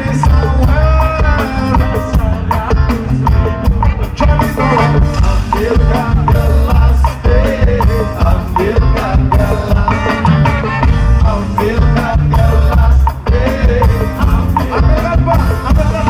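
Ska band playing live through a festival sound system, heard from within the crowd: singing over a steady bass and drum beat with guitar.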